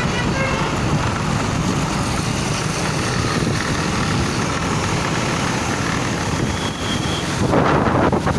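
Road traffic: a vehicle engine running with a steady low rumble and road noise, and a louder rushing burst about seven and a half seconds in.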